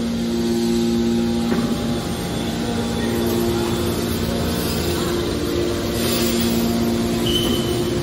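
Hydraulic scrap metal baler's power unit running: electric motors and hydraulic pumps giving a steady hum with two steady tones, which break off briefly about a second and a half in and come back a couple of seconds later.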